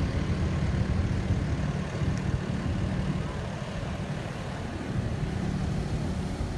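Steady low hum of an idling vehicle engine over a low rumble. The hum fades about three seconds in and returns near the end.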